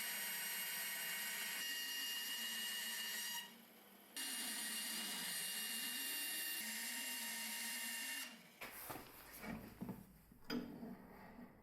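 A power tool running steadily, with a pitch that wavers a little under load. It cuts out for about half a second near the middle, runs again, then stops, and a few irregular knocks and clatter of handling follow.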